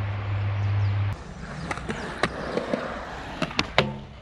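Skateboard wheels rolling on concrete, then a quick series of sharp wooden clacks near the end as the board is popped and lands on a metal flat rail. A steady low hum runs through the first second and cuts off.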